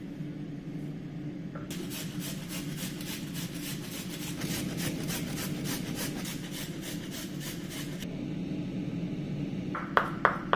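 Carrots scraped down a stainless steel box grater over a wooden chopping board: a run of rhythmic rasping strokes lasting several seconds. Near the end come two sharp knocks of a chef's knife chopping on the wooden board.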